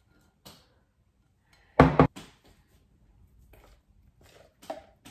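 A spoon scraping and tapping against a plastic measuring jug as thick cheesecake mixture is tipped out into a ceramic mixing bowl. There is a loud double knock about two seconds in and a few lighter taps after it.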